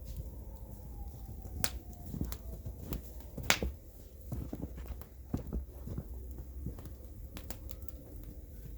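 Wood fire crackling, with irregular sharp pops, the loudest about three and a half seconds in, over a steady low rumble.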